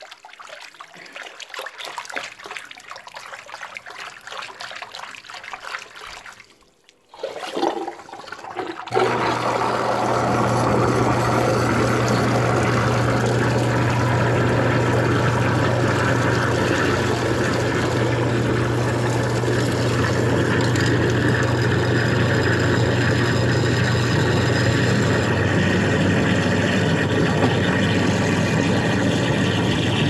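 A hand sloshing through a sink full of water and leftover food. About nine seconds in, a garbage disposal switches on and runs steadily with a low hum while the murky sink water drains down through it.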